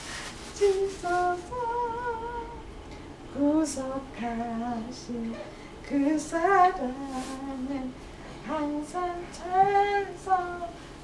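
A woman singing a slow, simple tune in short phrases of held notes.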